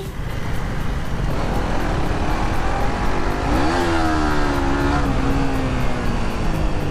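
Motorcycle riding on the road with steady engine and wind noise. About halfway through, an engine note rises, then falls slowly over the next couple of seconds.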